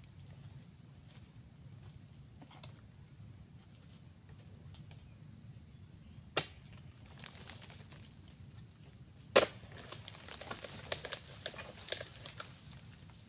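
Harvesting chisel on a long pole striking at the stalk of an oil palm fruit bunch: a single sharp knock, then a much louder one about nine seconds in, followed by a quick run of lighter knocks.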